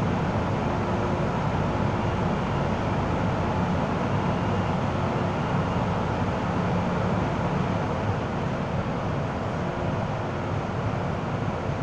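Steady hum inside a stationary MTR M-Train, with the carriage's air-conditioning and auxiliary equipment running and a faint low drone held throughout.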